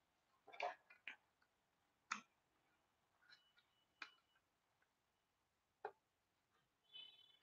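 Near silence broken by about seven faint, scattered clicks and ticks.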